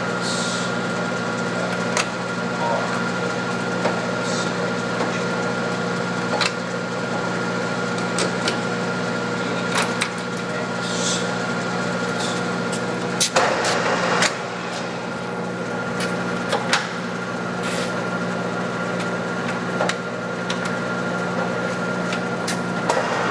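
Clausing Colchester 13-inch gearhead lathe running at 320 RPM while taking a cut under power feed: a steady gear hum with scattered ticks and short hissy scrapes from the cut. There is a louder, rougher burst about 13 seconds in.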